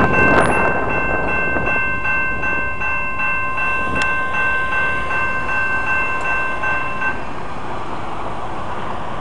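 Railroad crossing signal bell ringing in a steady, even rhythm over the rumble of freight cars rolling past. The rumble eases in the first couple of seconds, and the bell stops about seven seconds in.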